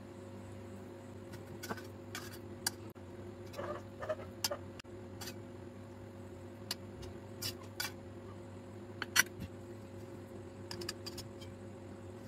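Metal utensils clicking and scraping on a stainless steel plate as onion filling is spread over bread, in scattered short knocks, the sharpest a little after nine seconds. A steady low hum runs underneath.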